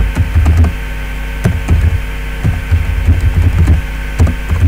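Computer keyboard being typed on, irregular key clicks with soft low thuds a few times a second, over a steady electrical mains hum.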